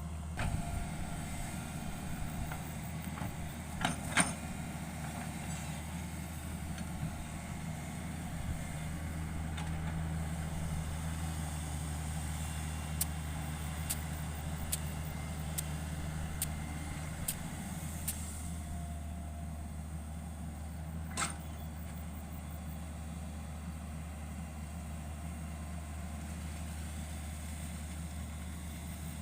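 Hitachi 110 hydraulic excavator's diesel engine running steadily, with a few sharp knocks, the loudest about four seconds in and another around twenty-one seconds, and light ticks in between.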